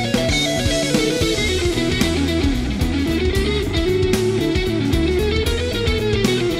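Live rock music: an electric guitar plays a lead line that slides up and down in pitch, over bass guitar and drums.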